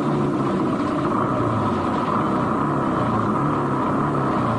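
Motorcycle engine running at low speed, its pitch shifting slightly, under a steady rushing noise.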